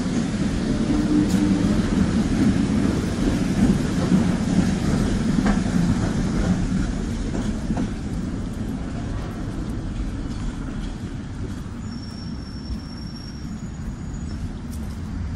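Tram passing close by: a loud low rumble that gradually fades over the second half, with a thin high squeal lasting a second or so near the end.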